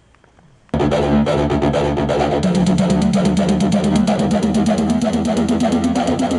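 A song playing loud through a JBL Charge 3 portable Bluetooth speaker, starting abruptly under a second in, with heavy bass and a fast, steady beat.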